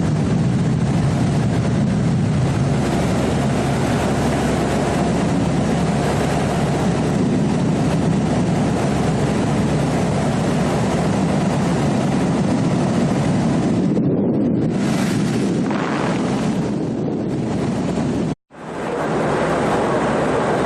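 Loud, steady engine and wind noise of an aircraft heard from on board during aerial filming. About eighteen seconds in it cuts out for a split second and then comes back.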